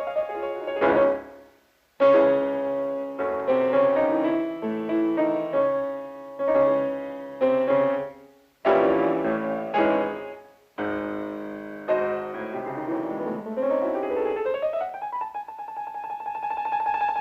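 Piano score for a classic cartoon: phrases of struck chords broken by short silences, easing into a held, ringing chord near the end.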